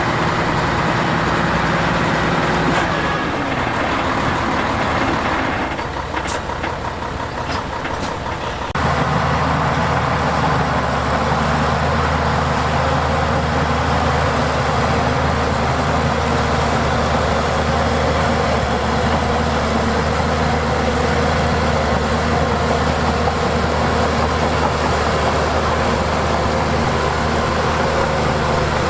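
Heavy diesel engines of earthmoving machines running steadily. The engine note shifts about three seconds in, and a few sharp clicks come between about six and nine seconds. Then the sound switches abruptly to a deeper, louder steady drone.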